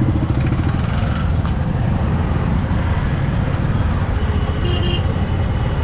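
Motorcycle riding slowly in traffic: steady engine rumble and road noise, with a short high tone, like a horn, about three-quarters of the way through.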